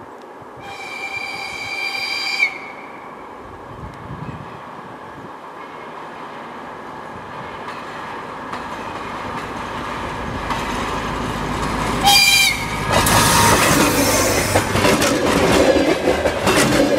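DR1A diesel multiple unit sounding its horn in a blast of about two seconds, then approaching with its engine and rail noise growing steadily louder. A second, short horn blast comes about twelve seconds in, and the train then passes close by with its wheels clattering on the rails.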